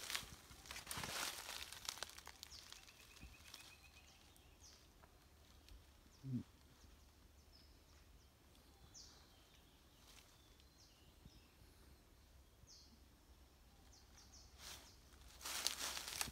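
Footsteps crunching and rustling through dry dead leaves and bamboo litter in the first two seconds and again near the end, with faint short bird chirps in the quiet stretch between. A brief low sound about six seconds in.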